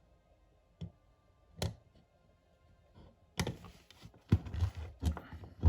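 A few light clicks, then from about three and a half seconds a quick run of clattering clicks and knocks as airsoft gearbox shells and parts are handled and set against each other on the bench.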